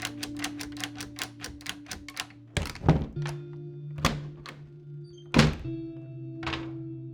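Music with sustained chords and a fast, even ticking beat, then from about 2.5 s in a series of five heavy thuds about a second apart.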